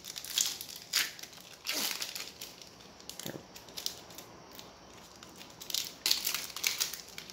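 Foil wrapper of a Topps Chrome baseball card pack crinkling and tearing as it is opened by hand, in irregular short bursts, the loudest near the end.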